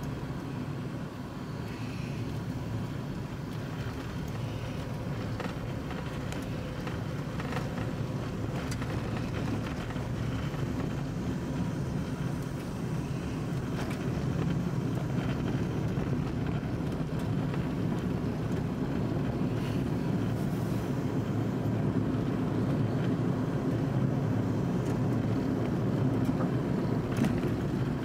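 Electric car driving on a paved road: steady low tyre and road noise that gradually grows louder, with a few light ticks from the road surface.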